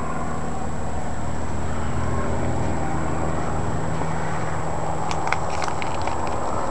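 Steady low mechanical hum over outdoor background noise, with a few faint clicks about five seconds in.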